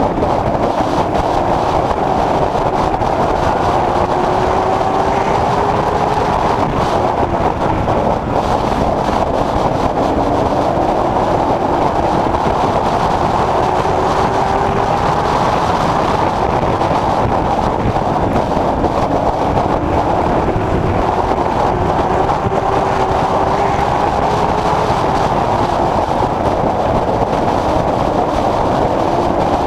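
Late Model Stock race car's V8 engine heard from inside the car, running hard with its pitch rising and falling every few seconds as it laps the track.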